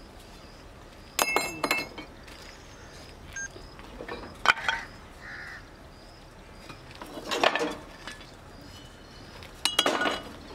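Chunks of scrap cast iron clinking and clattering as they are handled and dropped: four short clattering bursts a few seconds apart, each with a bright metallic ring.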